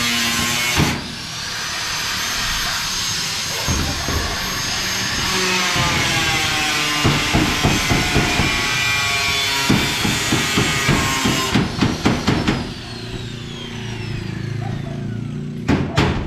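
Handheld electric power tool working on the steel decking, its motor whine sliding up and down in pitch as the load changes. A rapid run of knocks comes in the middle, then the motor winds down with a falling whine.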